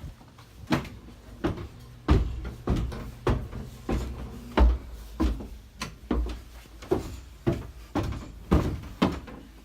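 A series of knocks and low thumps, roughly one every half second to second, with no speech.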